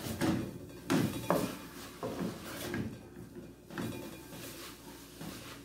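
Wooden spoon scraping and knocking against an aluminium pot while stirring a shredded chicken filling, in irregular strokes about once or twice a second.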